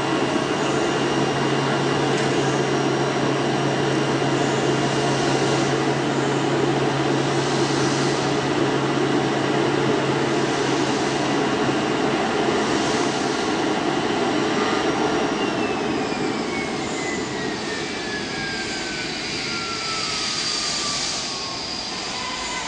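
DCZ70 oscillating-knife flatbed cutting machine running: a steady rushing hum, with a low drone that stops about halfway through and a high whine that slowly falls in pitch over the last seven seconds.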